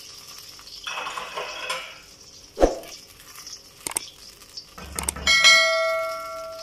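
Kitchen utensils and cookware knocking and clinking: a sharp knock, a click, then a loud metallic clang that rings with a clear pitch for over a second as it fades.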